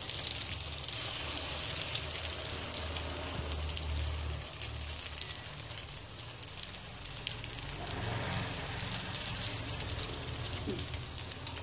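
Bread balls shallow-frying in ghee: a steady, high sizzle with many fine crackles.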